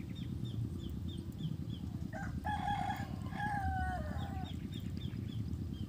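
A rooster crowing once, about two seconds in: a drawn-out call, slightly falling at the end. A small bird chirps about three times a second around it, over a steady low rumble.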